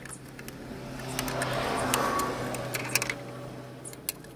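Light metallic clicks of a spanner tightening the belt tensioner pulley bolt, under a rush of noise that swells and fades with its peak about two seconds in.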